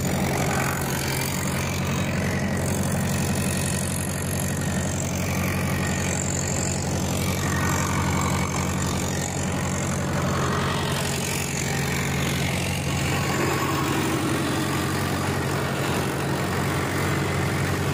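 Mahindra tractor's diesel engine running steadily with an even, low hum while the tractor pulls a rotavator through the field.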